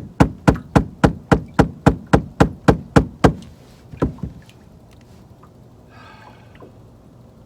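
Rapid, even knocking on the boat, about three knocks a second. It stops a little over three seconds in, with one last knock about a second later. The boat is being beaten to stir up the fish.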